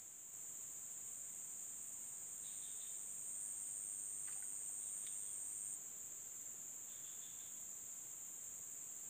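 Steady high-pitched chorus of insects in riverside forest. A second, higher insect joins in about two seconds in and cuts off suddenly near six seconds.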